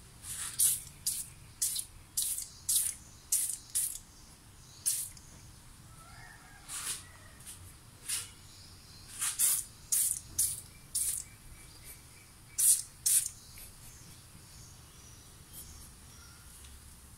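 Aerosol foam engine cleaner sprayed from a can in short hissing squirts, about fifteen in quick succession over the first thirteen seconds, then a pause.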